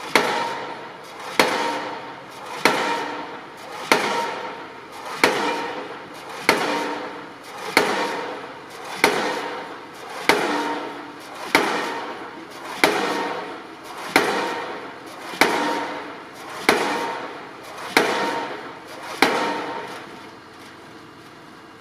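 Pile hammer on a rail-mounted rig driving a steel double-T (H) beam into the ground: heavy blows about every 1.3 seconds, each ringing out metallically from the beam. The blows stop about 20 seconds in.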